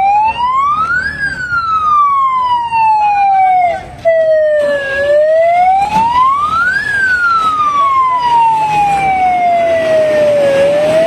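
Fire engine siren wailing. The tone rises quickly over about a second, then falls slowly over several seconds, and this happens twice, with a third rise starting near the end. There is a brief break in the sound just before four seconds in.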